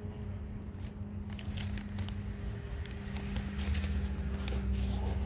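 Rustling and scattered clicks of a handheld phone being moved, with clothing brushing near the microphone, over a steady low hum.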